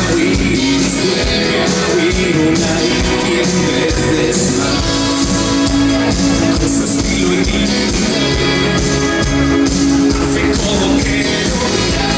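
Live rock band playing loudly through a festival sound system, with electric guitars, drums and bass, and some singing.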